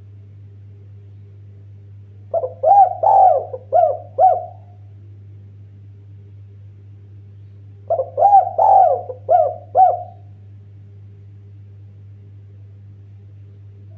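Spotted dove cooing: two phrases of about five rounded coos each, a few seconds apart, over a steady low hum.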